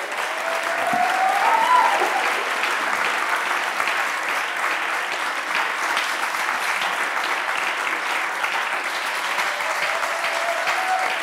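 Large audience applauding steadily, a dense even clatter of many hands clapping.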